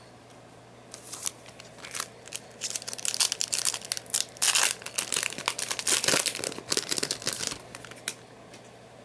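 Foil wrapper of a Yu-Gi-Oh! booster pack being torn open and crinkled: a dense run of crackling from about a second in, loudest in the middle, ending with a sharp click near the end.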